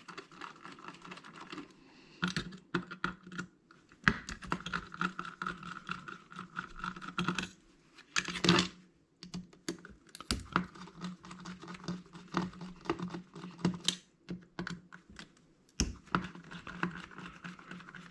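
Hard drive being taken apart by hand: rapid small clicks, taps and rattles of metal parts and hand tools, with a louder clatter about eight and a half seconds in. A faint steady hum runs underneath at times.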